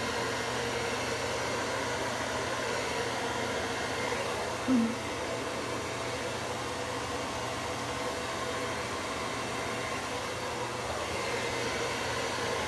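Hand-held hair dryer blowing steadily: an even rush of air with a steady motor hum. One brief low blip about five seconds in.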